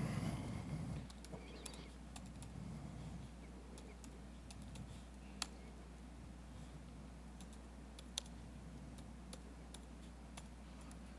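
Laptop keyboard typing: scattered faint key clicks with a few sharper strokes, over a steady low hum.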